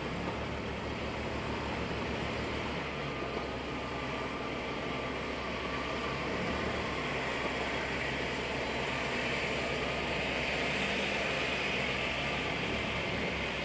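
Steady in-cabin noise of a car creeping forward at low speed: the engine runs low under an even hiss, which grows a little louder about halfway through.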